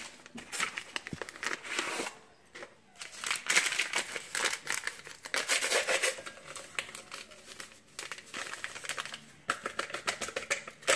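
Instant pudding mix packets crinkling and rustling as they are handled and emptied into a glass bowl, in three stretches with short pauses between.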